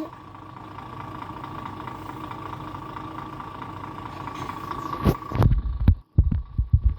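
Gravel truck's diesel engine idling steadily with a constant high whine, as the tractor unit is being uncoupled from its trailer. From about five seconds in, loud irregular low thumps and rumbles cover it.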